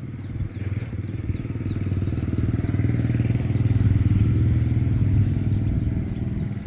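A small motorcycle engine running, growing louder to a peak about four seconds in and then fading away.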